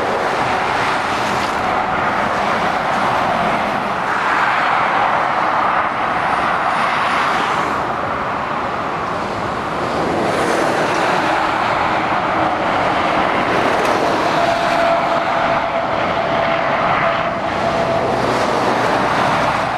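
Steady motorway traffic passing: tyre roar and engine noise from a coach, a lorry and cars, swelling and fading as each vehicle goes by. A faint steady whine joins for a few seconds near the end.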